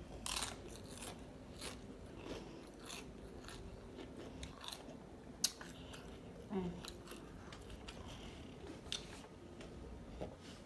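Close-up mouth sounds of chewing Doritos tortilla chips: irregular crisp crunches, with one sharper crack about five and a half seconds in.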